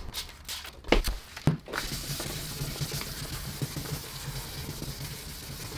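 Hand wet-sanding a plastic headlight lens with 1000-grit sandpaper. A few knocks in the first second and a half, then a steady scrubbing of the paper over the wet lens.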